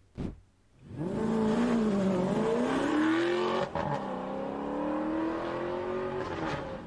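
Alfa Romeo 8C's V8 engine accelerating hard: the note climbs in pitch, breaks briefly at a gearshift near the middle, then climbs again before fading away.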